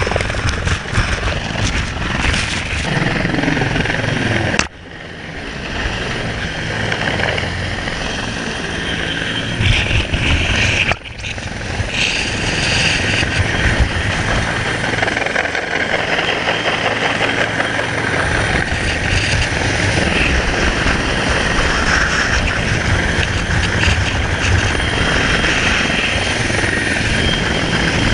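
Coast guard rescue helicopter hovering low overhead: steady rotor noise mixed with the rush of its downwash and heavy wind buffeting the microphone. The sound drops out suddenly for a moment twice, about five and eleven seconds in.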